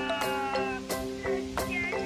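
Background music with a steady beat and sustained melody notes.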